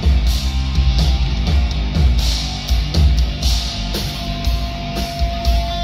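Live rock band playing: electric guitars over a steady drum beat with heavy bass, and one guitar note held for a couple of seconds near the end.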